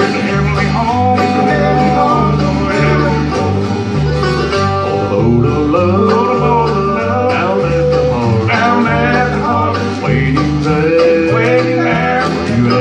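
Live bluegrass band playing: banjo, mandolin and acoustic guitars over an upright bass that steps back and forth between two notes about twice a second.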